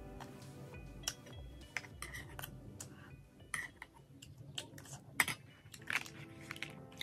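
Metal spoon clinking and scraping against a porcelain bowl in a run of sharp clinks, the loudest about five seconds in, over soft background music.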